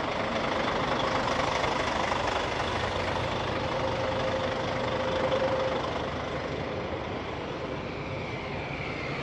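Engines of large coach buses running close by, a steady rumble mixed with street traffic noise; it eases a little about six seconds in.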